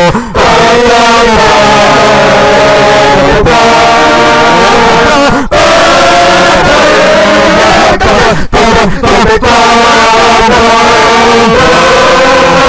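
Loud vocals imitating a marching band's show music, singing held, chord-like notes that change every second or two, with a few brief breaks after the middle.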